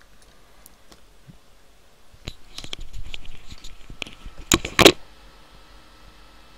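Small clicks and rustling from handling at a computer desk, ending in two sharp clicks in quick succession about two-thirds of the way through.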